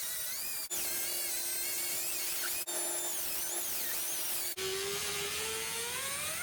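High-speed power tool whining as it cuts new sheet steel, its pitch wavering up and down with the load. The sound breaks off sharply and resumes three times, and near the end a lower hum joins in under a slowly rising tone.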